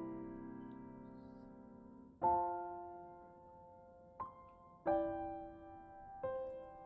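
Soft background piano music: slow chords, each struck and left to ring and fade, a new one every second or two.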